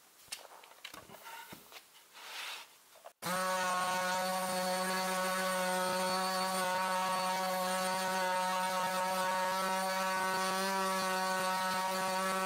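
About three seconds of light knocks and rustling as the board and sander are handled, then a Bosch PSM 80A multi sander starts abruptly and runs steadily with its pad sanding a wooden cutting board. Its sound is a steady hum with a stack of even, whining tones above it.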